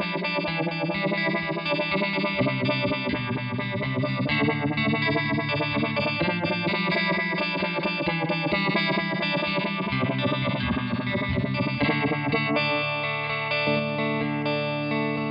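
Electric guitar (a PRS Silver Sky) played through an RFO Electronics Waterfall four-stage uni-vibe chorus/vibrato pedal: chords with a regular wavering throb from the modulation. Near the end a chord is held and rings out.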